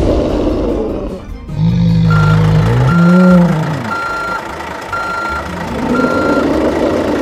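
Reversing-alarm beeps for the toy dump truck: five short, even beeps about a second apart, starting about two seconds in. A deep sound that bends in pitch comes just before and under the first beeps. A growl swells and fades at the start and again near the end.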